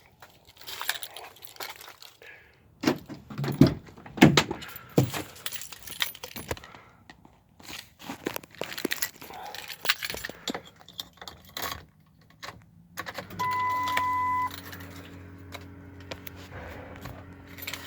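Keys jangling, with clicks and knocks, as the keys are handled and put in the ignition of a 2002 Ford F-350 with the 7.3 diesel. About two-thirds of the way through a single electronic beep sounds for about a second, and a steady low hum comes on as the key is turned on to cycle the glow plugs without cranking.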